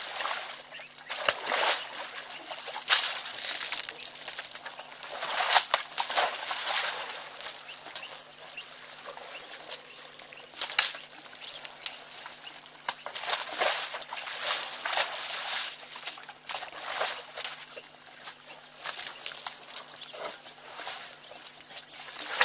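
African elephant sloshing and splashing in a muddy wallow, with mud and water slapping in irregular bursts. A faint steady low hum runs underneath.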